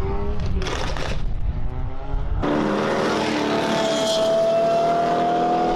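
Car engines running at a street-racing meet, with a car going past about a second in. After a cut, one engine holds a steady note that climbs slowly in pitch.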